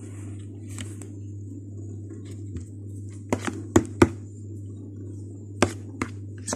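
A handful of sharp clicks and knocks, loudest in a pair about four seconds in, over a steady low hum.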